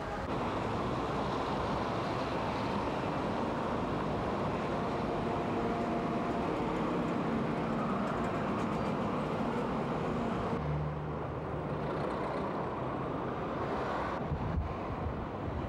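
Steady running noise of motor vehicles, changing abruptly about two-thirds of the way through and again near the end as one recording gives way to the next.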